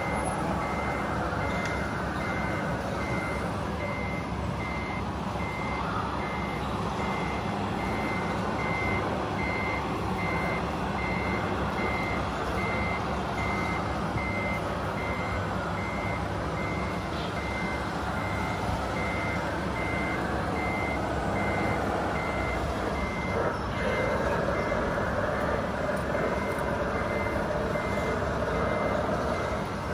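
Remote-control scale truck's sound module playing a reversing beeper: a high beep repeated at a steady pace, over a constant simulated diesel engine rumble. The beeps grow fainter in the last several seconds.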